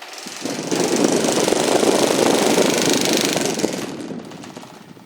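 Mallory Boreal electric fan running and vibrating heavily, a rough mechanical buzz from its misaligned blades. It comes up sharply just after the start and fades out toward the end.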